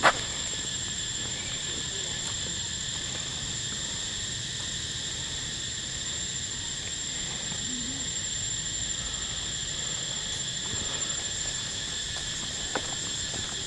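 Insect chorus droning steadily in several high-pitched tones, with a sharp knock right at the start and a smaller one near the end.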